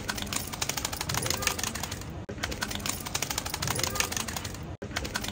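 An edited-in audio loop of rapid clicking with a voice-like sound, repeating about every two and a half seconds with a brief cut between repeats.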